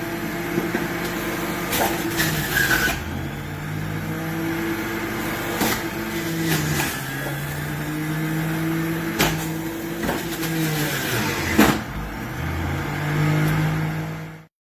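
Electric slow juicer's motor running under load and crushing produce, its hum shifting up and down in pitch every few seconds with sharp cracking snaps. The sound cuts off suddenly near the end.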